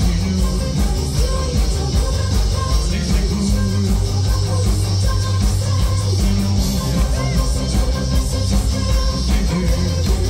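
Live new wave rock band playing: drums keeping a steady beat under electric guitar, keyboards and heavy bass through the stage PA.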